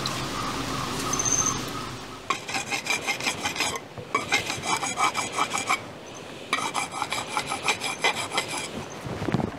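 A steel knife blade being sharpened against a flat metal bar, in two runs of quick scraping strokes. The first run starts about two seconds in and lasts about a second and a half; the second starts past the middle and lasts about two seconds.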